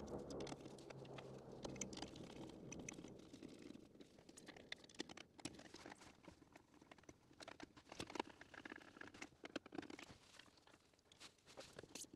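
Faint, scattered clicks and scrapes of a hand screwdriver turning screws and hands shifting a 3D-printed plastic mount on a steel roll-cage bar, with a faint low hum that fades out a few seconds in.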